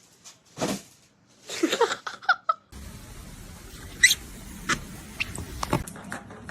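Short high-pitched animal calls and chirps, some gliding in pitch. About three seconds in it cuts to steady low background noise with a few clicks and one rising high call.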